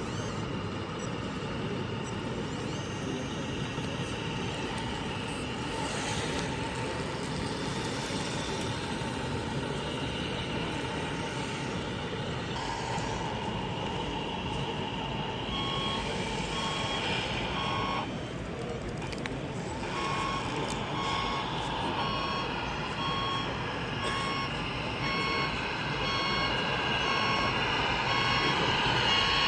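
A reversing alarm beeps about once a second over a steady mechanical hum. The beeping starts about halfway in and stops for about two seconds in the middle of that stretch.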